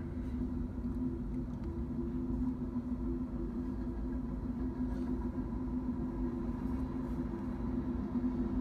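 Freight train cars rolling past on the rails, a steady low rumble with a steady hum over it and a few faint clicks.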